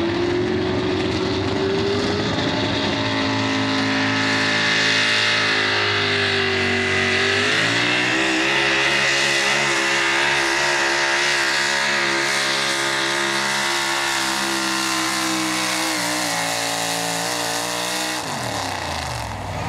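GMC Pro Stock 4x4 pulling truck's engine at full throttle, hauling the weight-transfer sled. The engine pitch climbs about seven seconds in and holds high, then falls sharply near the end as the throttle comes off at the end of the pull.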